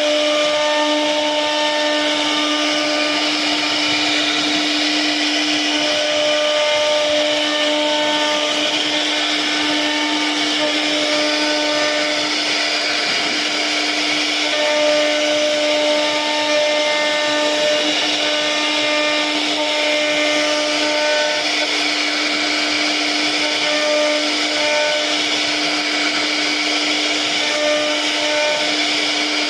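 CNC router spindle running steadily while carving a 2D design into a wardrobe panel: a constant high whine with a hissing cutting noise, and higher whining tones that come and go.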